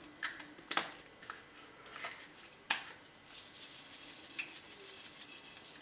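Salt being sprinkled by hand over raw chicken wings in a stainless steel bowl: a few light clicks of handling, then a faint high hiss of grains falling onto the meat for a couple of seconds, about three seconds in.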